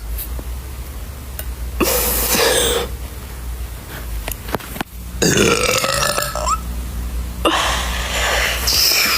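A woman burping several times in a row, the longest burp in the middle with a bending, wavering pitch. A steady low hum runs underneath.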